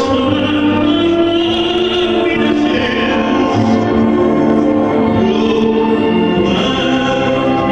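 Male tenor singing in an operatic style over musical accompaniment, holding long notes.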